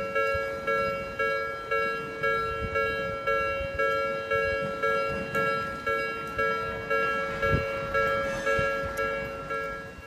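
Japanese railroad crossing warning bell ringing its electronic "kan-kan" from the loudspeaker on the signal pole: even, fading dings a little under two a second, the signal that a train is approaching. It cuts off near the end.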